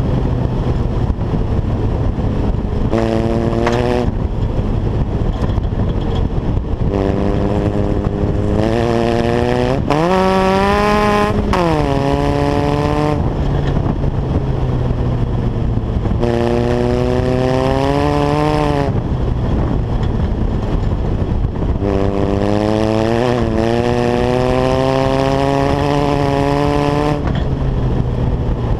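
Small engine of an off-road buggy under way on a gravel road, its note rising and falling as the throttle is opened and eased off again several times, with one sharp rev about ten seconds in. A steady rushing noise runs underneath.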